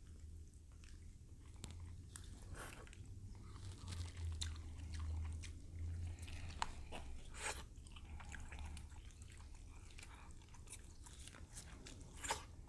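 Faint close-microphone eating sounds of someone chewing king crab leg meat, with scattered small clicks and crackles and a sharp click about seven and a half seconds in and again near the end.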